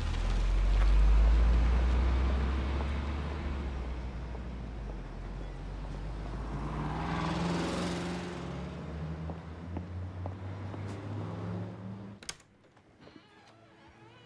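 Street traffic: a car engine's low rumble, then a car driving past close by about halfway through, its noise swelling and fading. Near the end the sound drops abruptly to a quiet room with a few faint clicks.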